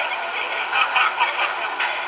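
MTH R40 model subway train running, its onboard sound system playing a steady subway-car running sound through a small speaker, thin and without low bass.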